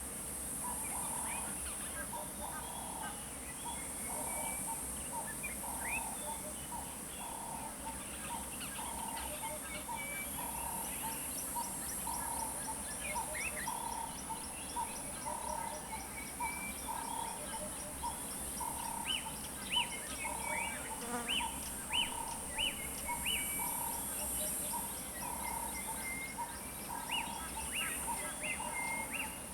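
Bush dawn-chorus-style ambience: a steady, high insect drone with several birds calling over it in short rising chirps and a lower note repeated about twice a second.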